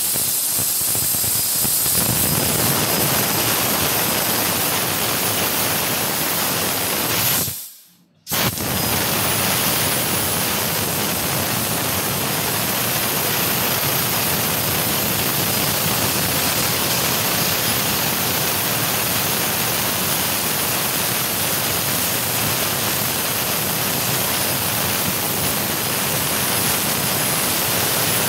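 Fiber laser cutting machine cutting sheet metal: a steady hiss of assist gas jetting from the cutting head nozzle as the beam cuts through the steel. The hiss fades out about eight seconds in and comes back abruptly.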